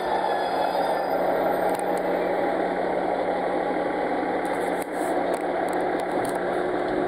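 Ise Railway diesel railcar standing at the platform with its engine idling: a steady hum with a low drone. A few light clicks come about two thirds of the way through.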